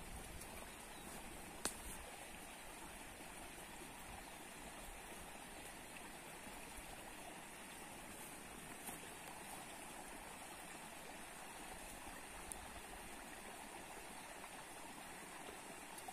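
A small creek running, a faint steady rush of water. A single sharp click or tap sounds about two seconds in.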